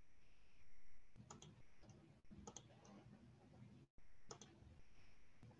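Faint clicking of a computer mouse: three quick double clicks spread over a few seconds, over low room noise.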